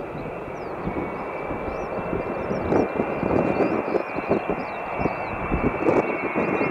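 Ilyushin Il-76TD's Soloviev D-30 turbofan engines running: a steady jet rush with rough low rumble and a constant high whine on top, growing slightly louder.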